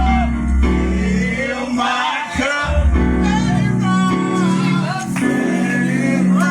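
Gospel music with singing over a bass and guitar accompaniment.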